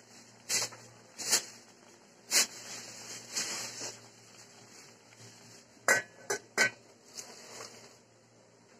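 Pot of catfish simmering in vinegar, giving a few short bursts of sizzling and spitting, then about six seconds in the metal pot lid is set on with three quick clanks that ring briefly.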